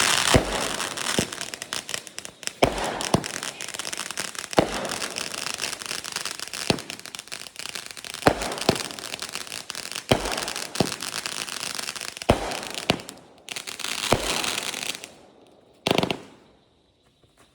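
Consumer fireworks going off: a steady crackling hiss with sharp bangs every second or two. It stops about fifteen seconds in, and one more loud burst follows about a second later.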